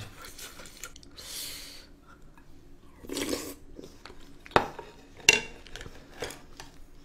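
Eating at a table: chopsticks clicking against dishes and soft chewing, with two sharp clicks a little past halfway and a couple of short rushing mouth noises before them.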